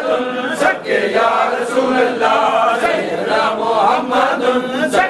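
A group of men chanting dhikr together in unison, with a short pause about a second in.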